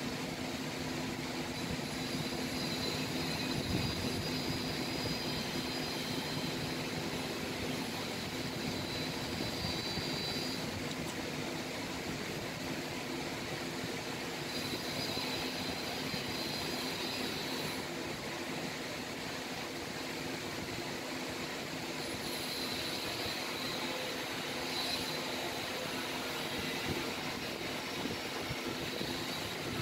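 Steady low mechanical hum over a constant hiss, with a higher hiss that swells and fades a few times.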